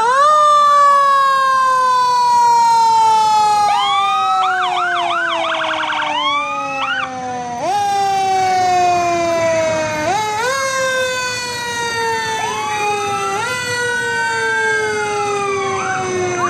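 Fire engine siren sounding again and again, each time rising quickly in pitch and then winding slowly down. Shorter whooping siren glides sound over it about a quarter of the way in and again near the end.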